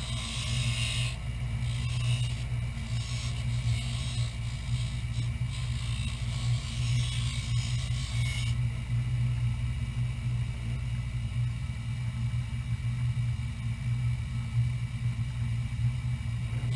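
Bench grinder motor running with a steady low hum while a wooden stick is pressed against the spinning wheel, giving an uneven high grinding hiss as wood is taken off. The grinding stops a little past halfway, leaving only the motor running.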